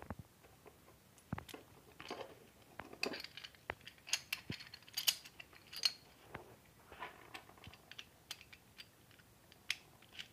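Small steel parts (flat plates, washers and a bolt) clicking and clinking against each other as they are fitted together by hand, in irregular light taps with a short scrape about two-thirds of the way through.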